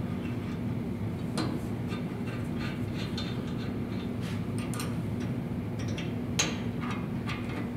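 Scattered light metallic clicks and taps as the band saw's blade-guide blocks and their fittings are loosened and worked out by hand, over a steady low hum.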